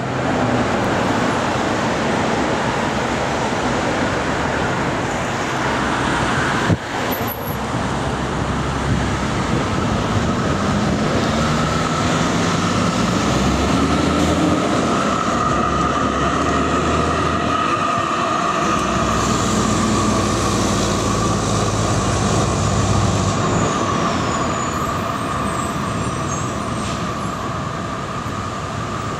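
Street traffic with a Comeng B2-class electric tram running toward the camera on street tracks, amid cars and other road vehicles. A single sharp click sounds about seven seconds in. A steady high whine comes in from about twelve seconds and holds to the end.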